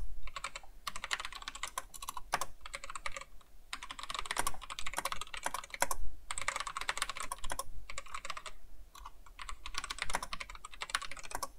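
Typing on a computer keyboard: quick runs of keystroke clicks broken by short pauses between words and phrases.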